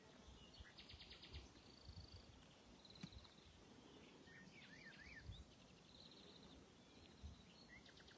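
Near silence with faint songbirds calling: several short buzzy trills and thin chirps scattered through the quiet.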